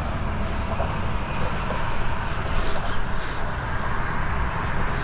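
Steady rushing noise with an uneven low rumble, typical of wind buffeting the microphone.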